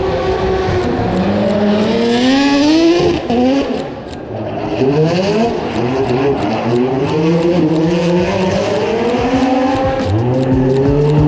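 Aston Martin drift car's engine revving hard. Its pitch climbs in repeated sweeps and drops back as the car holds a smoky slide, with a brief dip in level about four seconds in, over a hiss of tire noise.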